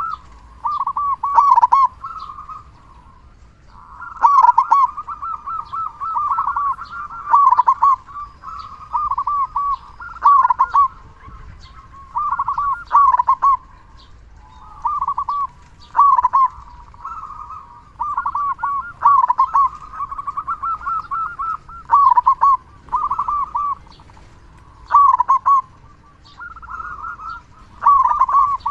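Zebra dove (perkutut) singing: phrases of quick, rolling cooing notes, repeated about every two to three seconds.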